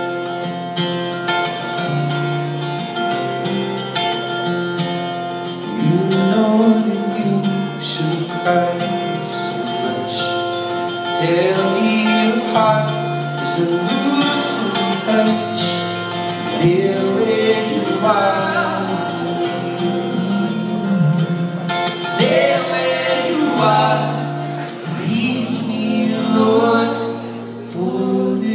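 Live folk song: an acoustic guitar plays chords, and male voices come in singing in harmony about five seconds in, continuing over the guitar.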